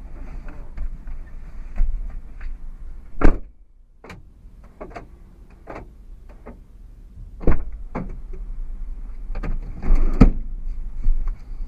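Rear BC Racing BR coilovers on a 2008 Honda Accord coupe knocking irregularly over a low road rumble, with the loudest knock about three seconds in and a cluster of them near the end. The owner has ruled out the end links, sway bar, bushings, top nut and mounting bolts, and puts the knock down to the coilovers themselves.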